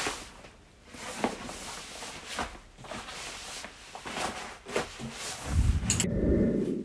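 Olive Cordura shooting mat rustling and scraping as it is folded up on a steel table. A louder, low handling rumble comes in the last second and a half.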